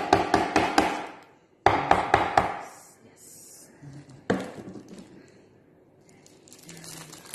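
Mozzarella ball rubbed in quick strokes against a metal box grater on a wooden cutting board: two fast runs of rasping strokes, then a single knock a little past halfway as the grater is set down on the board.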